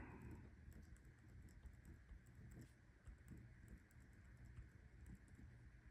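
Faint pen-and-paper sounds: scattered light taps and scratches of a pen on planner pages, over low room hiss.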